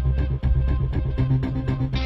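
Background music: an electronic track with a steady beat over sustained bass notes.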